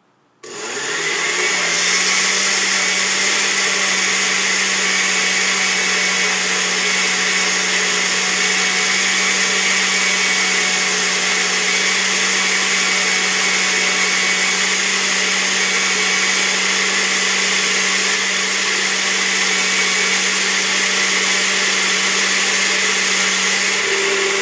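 Countertop blender running, blending avocado, mayonnaise, egg, aloe vera juice and oils into a thick mixture. The motor starts about half a second in, rises in pitch over about a second as it comes up to speed, then runs loud and steady.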